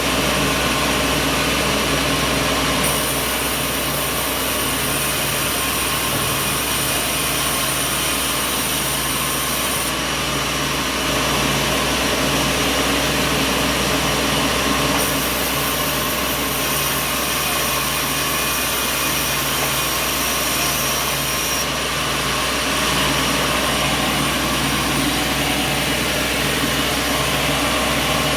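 Sawmill machinery running steadily with a constant mechanical drone and hiss. A brighter high hiss comes in twice, each time for several seconds.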